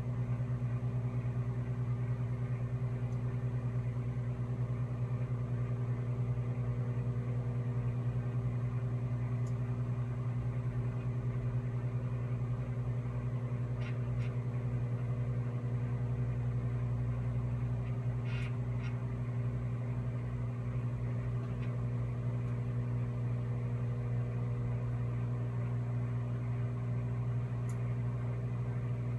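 Microwave oven running while cooking: a steady low hum with its overtones, with a few faint ticks now and then.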